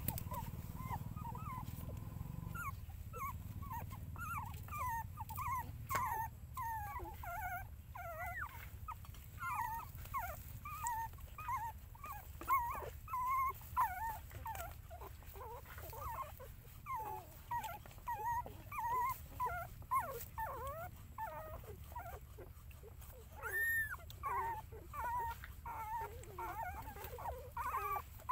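Nursing puppies whimpering and squeaking: short, high, wavering squeaks, several a second, over a low steady rumble, with one louder squeal near the end.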